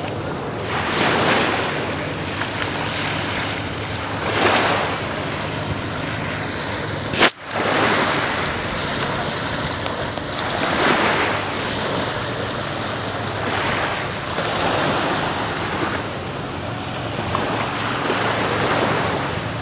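Small waves washing onto a sandy beach, a steady rush of surf that swells every few seconds as each wave comes in. A single sudden click about seven seconds in.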